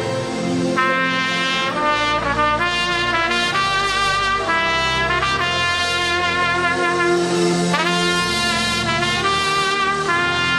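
Solo trumpet playing a slow worship melody in long held notes, with a scoop up into one note near the end, over sustained low chords.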